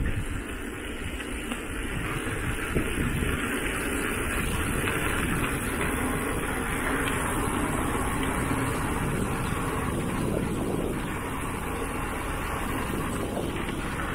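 E-mountain bike rolling downhill on a gravel road: steady rumble and rattle of the tyres over loose stones.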